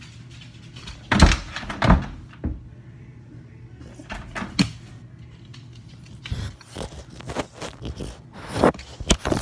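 A dog's paws and nose bumping against a phone lying on the floor at a door: a series of irregular close-up thumps and knocks, the loudest about a second and two seconds in and again near the end.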